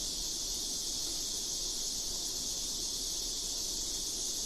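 Steady high-pitched hiss of background noise with a faint low hum beneath it, unchanging throughout.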